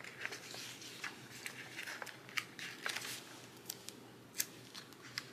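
Faint paper handling: sticker-book pages rustling and small crisp ticks as paper stickers are picked over and peeled between the fingers.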